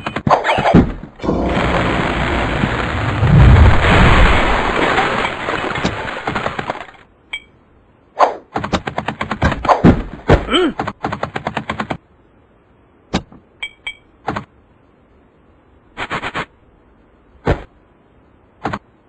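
Cartoon sound effects: a loud, noisy rush with a deep rumble that lasts several seconds and cuts off, then rapid runs of sharp clicks and knocks followed by a few separate knocks.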